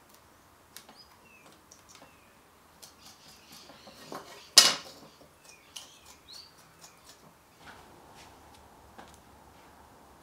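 Light clicks, taps and rubbing from wiping glue out of a wooden kumiko panel on a wooden bench, with one louder sharp clack about four and a half seconds in. Short bird chirps sound now and then in the background.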